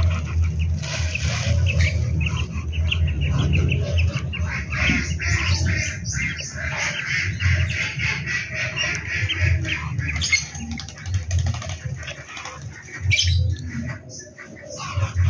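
A crowd of ducklings peeping rapidly and continuously as they jostle to feed from a hand.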